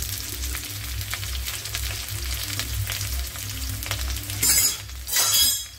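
Sliced onions, green chillies and garlic frying in hot mustard oil in an aluminium kadai: a steady sizzle over a low rumble. Near the end come two louder bursts of hiss, each about half a second long.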